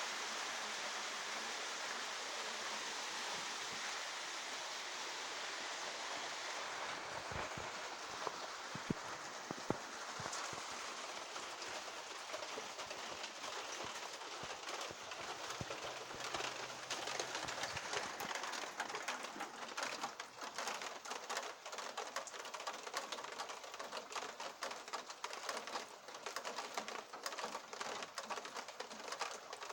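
Rain falling in a steady hiss, which after about twelve seconds breaks up into a patter of many separate drops.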